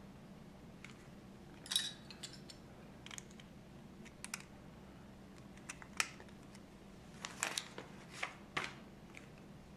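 Plastic Lego bricks clicking and snapping as they are handled and pressed together onto a small model car's chassis: scattered sharp clicks, with a quick cluster of them near the end.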